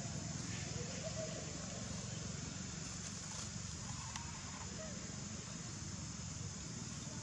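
Steady outdoor background noise with a few brief, faint squeaks from baby macaques, about a second in and again about four seconds in.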